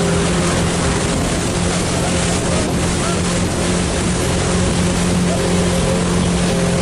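Motorboat engine running steadily at speed while towing a tube, over the rush of water and wind buffeting the microphone.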